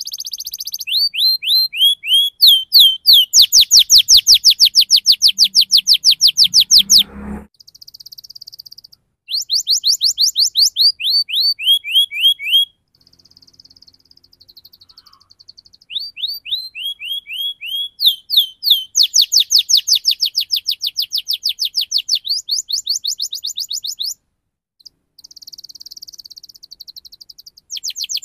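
Domestic canary singing a rolling song: long fast trills of rapidly repeated notes that sweep down in pitch, in bursts of a few seconds, with short buzzy passages and brief pauses between them.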